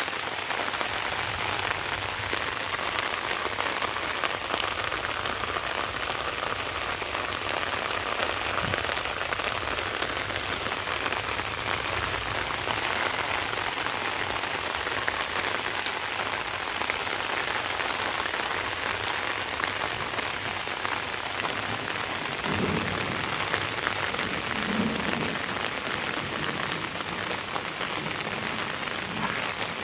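Steady rain falling on trees, grass, a dirt path and puddles, an even hiss.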